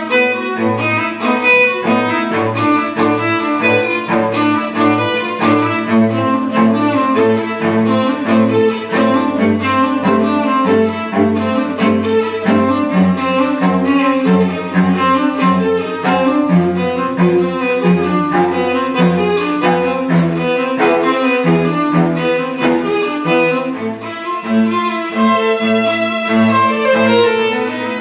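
String quartet of two violins, viola and cello playing live, with short repeated notes in the cello at a steady pulse under the upper strings.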